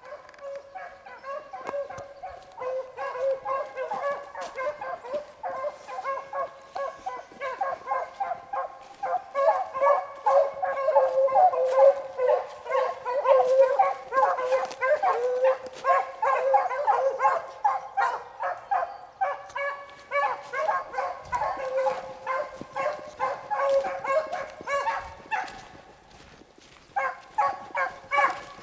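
A pack of beagles baying in full cry, running a rabbit's track, with many overlapping voices. It is loudest in the middle, thins out briefly near the end, then picks up again.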